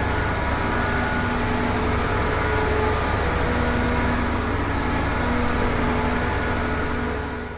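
Concrete mixer truck running: a steady low engine rumble with a few steady whining tones coming and going over it, fading out near the end.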